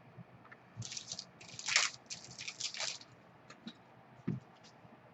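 Trading cards being handled: about two seconds of scratchy sliding and rustling, followed by a few light clicks and a soft thump.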